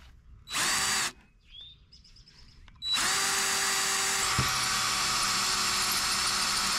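DeWalt DCD771 cordless drill/driver boring a masonry bit into brick in its low-speed gear (setting 1): a short burst about half a second in, then from about three seconds in a steady run with an even motor whine.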